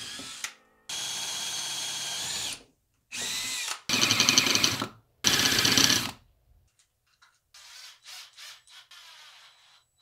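Handheld power drill run in four short bursts of one to two seconds each, the last two louder, while drilling mounting holes in an RC car chassis. A few faint handling clicks follow near the end.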